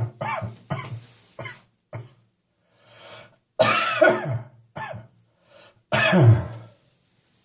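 A person coughing hard and repeatedly, with a chest and throat that are full and congested: a run of short coughs, a breath in about three seconds in, then two longer, loud bouts of coughing, one in the middle and one near the end.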